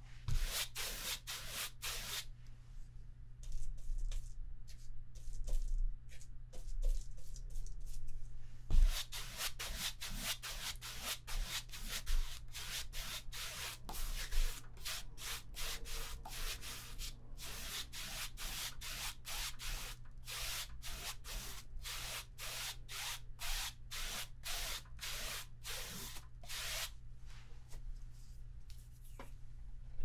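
Paintbrush scrubbed back and forth over a stretched canvas, making short scratchy strokes about two or three a second. The strokes stop for several seconds near the start, then run on densely for most of the rest. A faint low hum runs underneath.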